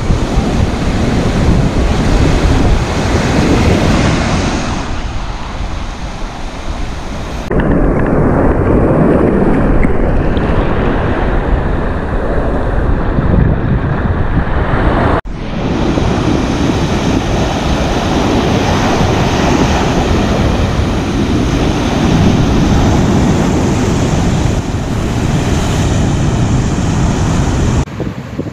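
Surf breaking and washing up on a sandy beach, with wind buffeting the microphone. The roar changes abruptly twice, about 7 and 15 seconds in, and drops away near the end.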